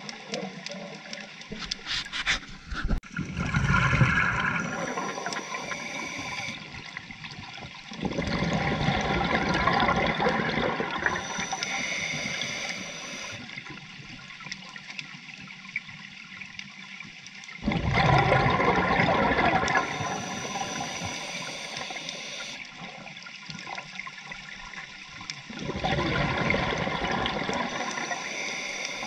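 Scuba diver breathing through a regulator underwater: exhaled bubbles burst out four times, each burst lasting a few seconds, with quieter hiss between breaths. A quick run of clicks comes a couple of seconds in.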